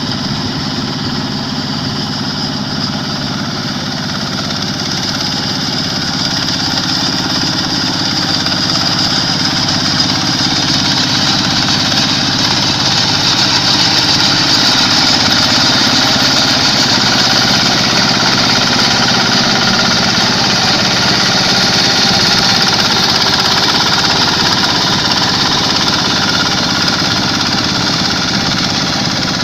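Quick H-140R combine harvester's diesel engine running steadily under a constant high hiss from the machinery, growing gradually louder over the first half.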